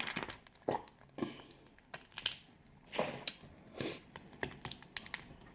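Close-miked eating sounds from a person eating a crawfish boil meal: irregular wet mouth smacks and short sharp clicks as she chews.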